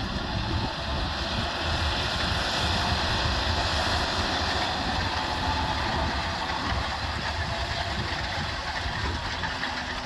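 John Deere 6215R tractor's six-cylinder diesel engine running steadily under load while pulling a reversible plough through the soil. The sound swells over the first couple of seconds as the tractor comes past.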